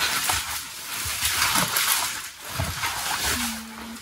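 Rustling and handling of a black fabric bag as its contents are taken out, an uneven scraping and crinkling with small knocks. A steady low tone comes in near the end.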